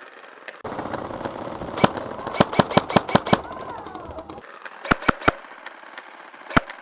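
Airsoft guns firing: a rapid string of about eight sharp shots, then a quick group of three about five seconds in and one more single shot near the end.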